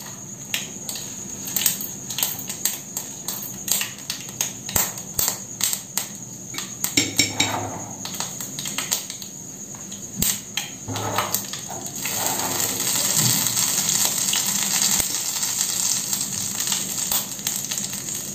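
Mustard seeds crackling and popping in hot mustard oil in a small tempering pan, many sharp pops a second. About twelve seconds in, a steady hissing sizzle sets in as urad dal is spooned into the oil.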